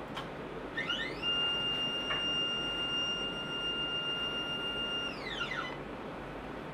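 Motorized sample stage of an atomic force microscope moving: an electric motor whine that rises in pitch about a second in, holds one steady high tone for about four seconds, then falls in pitch and stops.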